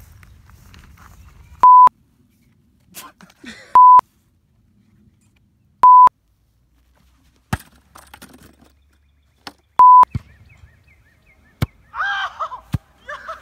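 Four short, loud 1 kHz test-tone beeps of the kind played over colour bars. The first three come about two seconds apart and the fourth after a longer gap. A few sharp clicks fall between them.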